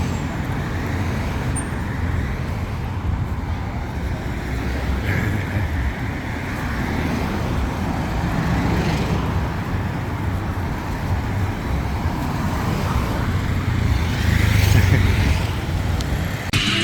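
Road traffic: motor vehicle engines running steadily, with vehicles swelling up and fading as they pass, twice.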